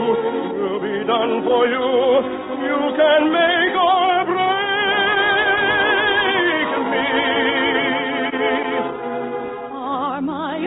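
Operetta singing: a trained voice with wide vibrato holding long notes over an orchestra, on an old radio recording with the top end cut off.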